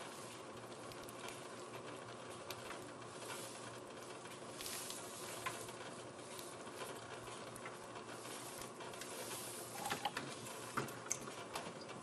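Aquarium filter return water trickling and splashing steadily into the tank, with a few small clicks about ten seconds in.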